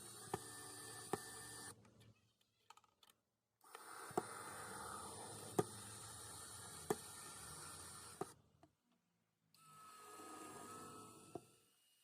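Faint room noise with a few sharp, isolated clicks, about one every second or so, cutting out to silence twice.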